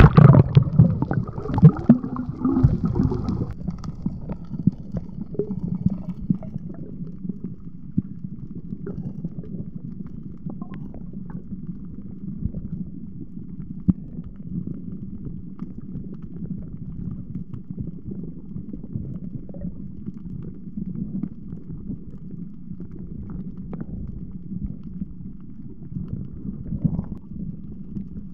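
Splashing and bubbling as a diver goes under the sea surface, then a steady low, muffled rumble of water around an underwater camera, with faint scattered clicks.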